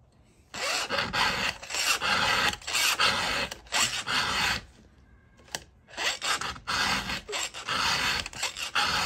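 Round chainsaw file rasping across a saw chain's cutter tooth in quick strokes, about two a second, with a short pause midway. The file is angled down to cut back the gullet when reviving a chain.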